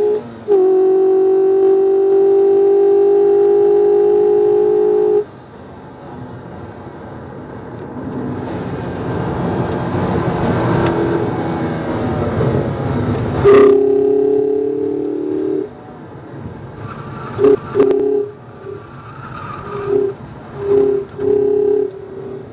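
In-cabin sound of a 2019 Mazda MX-5 RF's 2.0-litre four-cylinder engine on track: a steady, high engine note under power that cuts off suddenly about five seconds in. A rising rush of road and wind noise follows, then a sharp click, a brief return of the engine note, and short on-off bursts of engine sound near the end.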